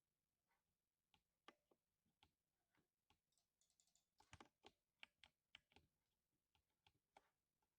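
Faint typing on a lubed 60% mechanical keyboard: irregular keystrokes, sparse at first and coming in a quicker run about halfway through.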